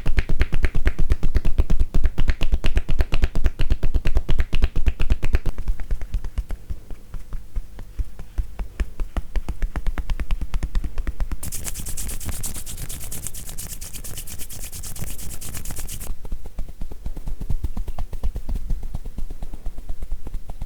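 Fast, rhythmic tapotement massage: hands tapping on a client's upper body in a steady patter of light, hollow knocks. The strokes are loudest for the first few seconds and then softer, and a little past the middle a crisper, brighter tapping takes over for several seconds.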